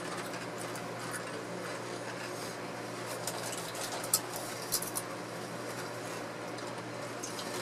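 Chewing and crunching of almond-rice crackers (Blue Diamond Nut Thins), with a few short, sharp crunches around the middle over a steady low hum.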